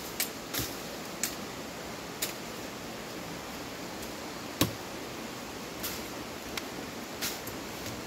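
Steady hiss of rainforest background sound with scattered sharp clicks about once a second, a louder one about halfway through.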